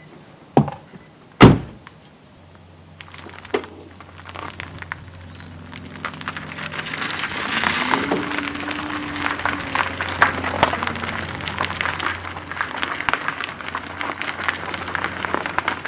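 Two sharp knocks, then a dense crackling and crunching of cracked windshield glass that builds up and carries on as the screen is worked loose.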